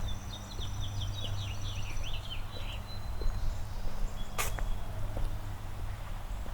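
A songbird singing a quick run of short, falling chirps for about two seconds, over a low steady hum. A single sharp click sounds about four and a half seconds in.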